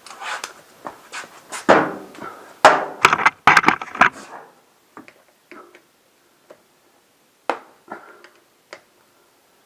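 Metal hand tools clattering and knocking as they are handled, a dense run of sharp knocks and rattles for about four seconds, then a few scattered single clicks.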